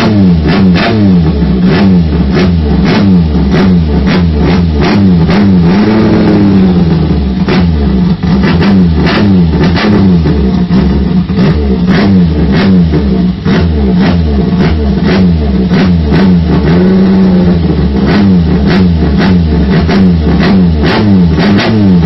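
Toyota K-series four-cylinder petrol engine for a Thai longtail racing boat, run on a test stand through long open straight exhaust pipes and revved up and down by hand over and over, with frequent sharp cracks.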